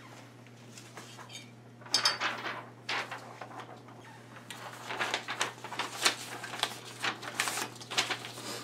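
Sheets of paper being handled, rustling and crinkling in irregular bursts, played backwards. A burst comes about two seconds in, and a longer stretch of rustling runs through the second half.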